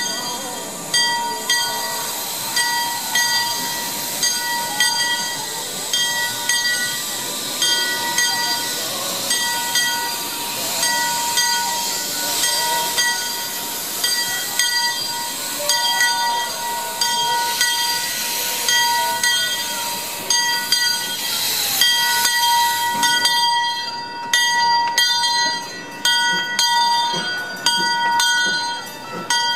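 A railroad bell ringing about once a second as a narrow-gauge coal-fired steam locomotive comes in, with a hiss of venting steam that cuts off sharply about three-quarters of the way through.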